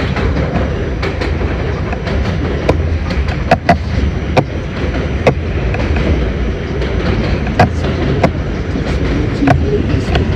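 R68 subway car running along the track: a steady low rumble of wheels and motors, broken by irregular sharp clicks as the wheels pass over rail joints, heard from inside the car.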